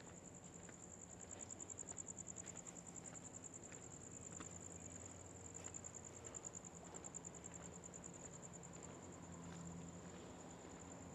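Crickets trilling steadily, a continuous high-pitched rapid pulsing, with faint scattered footsteps and a low steady hum underneath.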